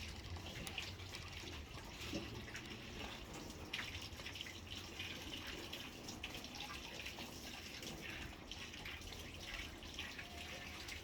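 Steady trickle of running water, splashing with many small drips.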